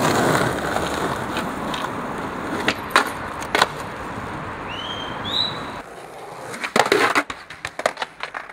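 Skateboard wheels rolling over pavement with a steady rumble and a few sharp clicks. Near the end comes a quick run of clacks and knocks as the board hits the ground.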